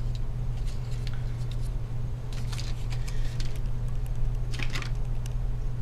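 A steady low hum throughout, with a few faint plastic clicks and rustles as the laptop's removed screen bezel is lifted away and handled, the clearest a little before the end.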